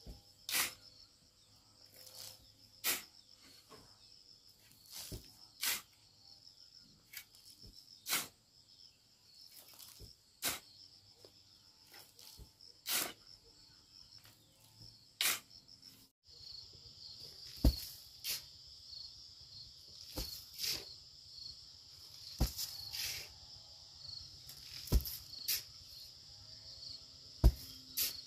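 Insects chirping steadily in a high, pulsing drone, with sharp single taps or knocks every second or two.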